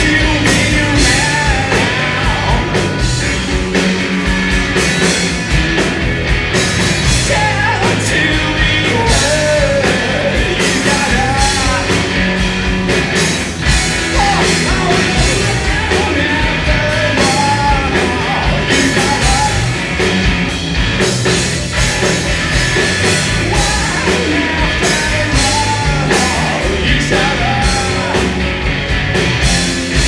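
Rock band playing live, loud and steady, with a sung lead vocal over guitars, bass and drums.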